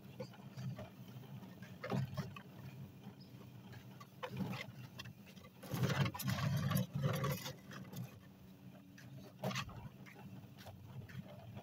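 Hoover Spin Sweeper push sweeper's spinning brushes rustling and scraping over a concrete driveway as it is pushed back and forth, in several bursts a couple of seconds apart, the longest about six seconds in. A steady low hum sits underneath.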